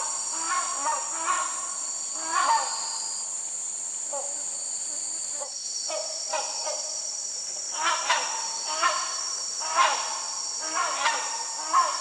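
A hornbill, called karawotak locally, giving loud calls like 'gak, gak' in fast runs of about two a second. The calls are sparse around four to six seconds in and come thickly after that. Insects keep up a steady high-pitched buzz behind them.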